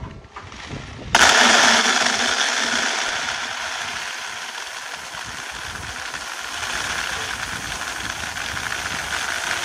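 Dry beans poured in a steady stream from a plastic basin into a plastic bucket below, as a dense rattling hiss. It starts suddenly about a second in, is loudest at first, then eases a little and holds. The beans are being poured from height to winnow them before cooking.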